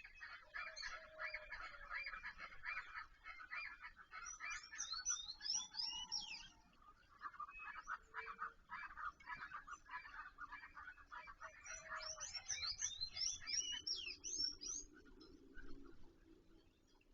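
Songbirds singing: a long run of fast repeated chirping notes, heard twice, each time joined near its end by high, quickly sweeping whistled notes.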